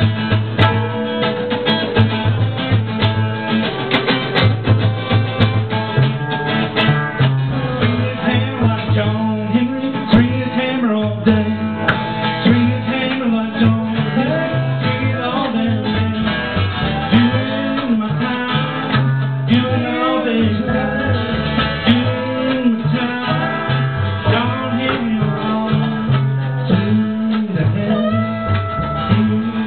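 Live acoustic string band playing: strummed acoustic guitar, mandolin and plucked upright bass, with a singing voice.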